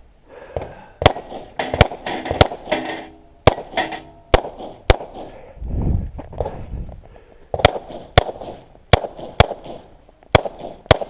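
A string of pistol shots, about a dozen sharp cracks in irregular pairs and singles, with a pause of a couple of seconds in the middle; a few shots are followed by a short ringing tone.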